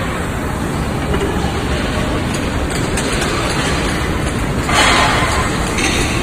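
Steady mechanical din of cookware factory machinery, with a brief louder burst of noise about five seconds in.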